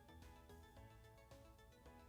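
Quiet background music with a steady beat and a repeating melody.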